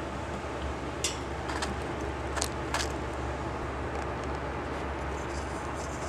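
Steady low hum and hiss with a few sharp clicks and taps, about four of them between one and three seconds in, as a chinchilla bumps and mouths the camera.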